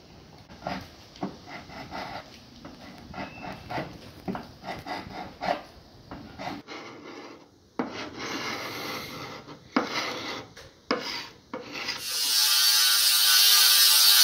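Hand-sanding of the wooden inside of a sailboat hull, short scraping strokes about two a second. About twelve seconds in, a power grinder starts, loud and steady, grinding rust off the boat's iron keel.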